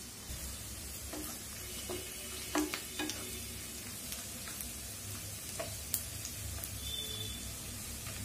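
Chopped onions sizzling in oil in a stone-coated nonstick frying pan, with a wooden spoon stirring them and knocking against the pan a few times about a third of the way in.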